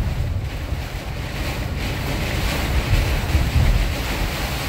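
Heavy storm rain and gusting wind beating on a moving car, heard from inside the cabin: a steady rushing noise over a strong, fluctuating low rumble of wind buffeting and tyres on the flooded road.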